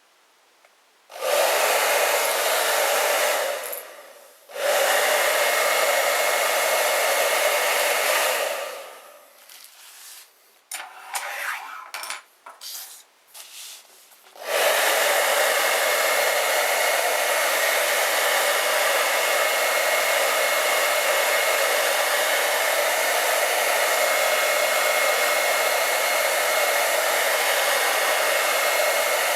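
Hair dryer blowing a rush of air with a steady high whine. It switches on about a second in, stops and starts a few times in the first half, then runs steadily from about halfway, heating a phone's screen so the glass can be prised off.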